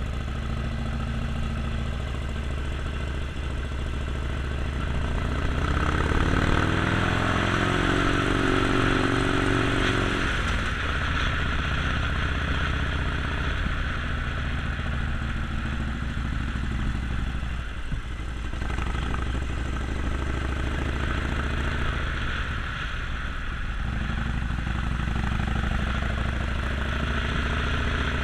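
Harley-Davidson Sportster Forty-Eight's air-cooled 1200 cc V-twin engine running under way. About six seconds in it revs up and holds, then eases back after about ten seconds and runs on steadily.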